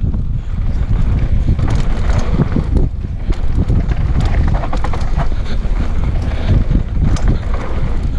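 Wind buffeting the microphone of a GoPro Hero 5 Session as a Production Privée Shan N°5 mountain bike descends a rough dirt trail at speed. The rumble is steady, with scattered rattles and knocks from the bike and tyres over bumps.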